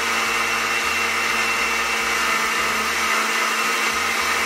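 Countertop blender running steadily at one speed, blending a liquid flan mixture of condensed milk, eggs and crumbled Maria cookies.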